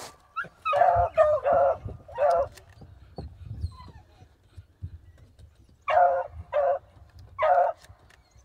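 Beagles barking in short, sharp yelps: a quick run of three or four barks, a pause, then three more near the end.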